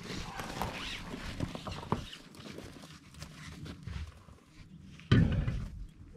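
A man straining and grunting while working a stuck lug nut loose with a hand wrench, with irregular scraping and knocking of the tool. A sudden loud burst comes about five seconds in.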